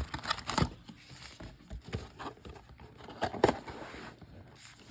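Trading card packs being handled and set down out of their display box: irregular light taps and rustling, with a sharper tap about three and a half seconds in.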